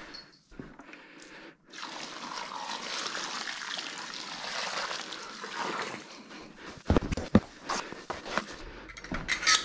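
Water poured from a bucket into a tray of dry potting mix: a steady splashing pour lasting about four seconds. After it, a hand hoe stirs the wet mix, with several sharp knocks.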